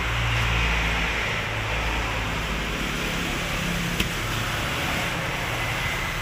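Steady mechanical background hum and hiss, like a fan or distant traffic, with a single sharp click about four seconds in.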